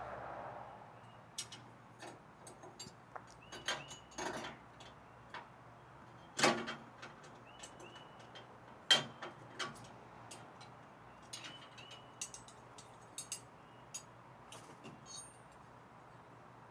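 Scattered clicks and knocks of elliptical trainer parts and hand tools being handled during assembly, with two louder knocks about six and a half and nine seconds in.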